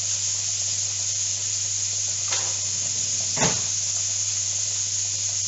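Diced pancetta sizzling in a hot frying pan: a steady hiss over a low hum. Two brief knocks or scrapes come about two seconds in and again a second later, the second louder.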